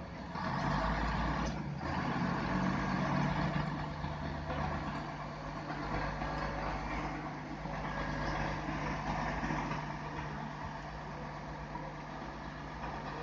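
Heavy concrete truck engines running steadily, with a brief hiss about a second and a half in.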